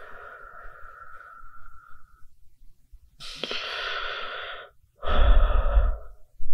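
Human breathing: three long, breathy breaths one after another, each louder than the last. The third, about five seconds in, is the loudest and carries a deep rumble.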